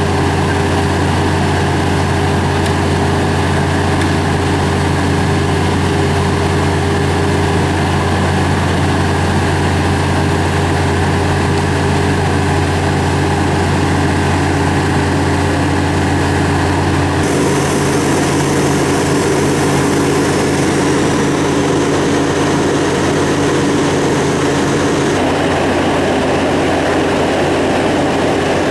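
Heavy machinery engines running steadily, a continuous low hum with a steady drone above it; the tone shifts about two-thirds of the way through and again near the end.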